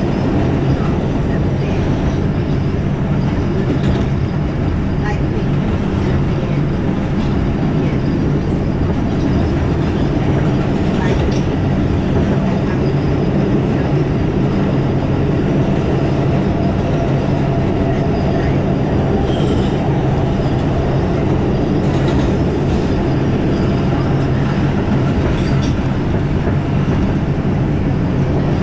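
New York City subway 5 express train running at speed through the tunnel, heard from inside the car: a steady loud rumble with a low hum and a few clicks from the wheels on the track.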